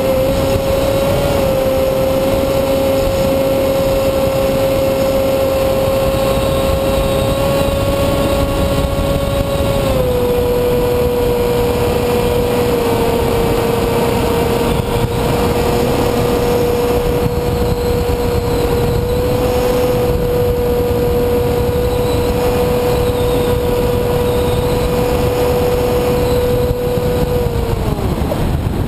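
Electric motor and propeller of an EPP foam FPV model plane, heard from its onboard camera: a steady high whine over a rush of wind noise. The pitch drops slightly about ten seconds in and winds down near the end.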